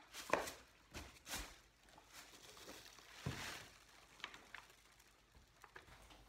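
Plastic wrapping crinkling and a cardboard shipping box rustling and knocking as a plastic-wrapped light bar is handled in it: a few short rustles and knocks in the first second and a half, a longer crinkle about three seconds in, then light ticks.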